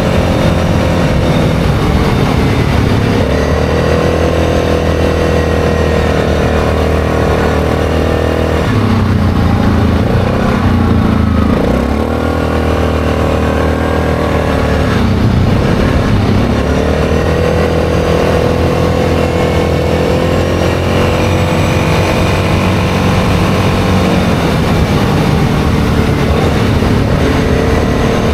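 ATV engine running steadily under way on a gravel road. Its note drops and climbs back twice around the middle as the throttle is eased off and opened again.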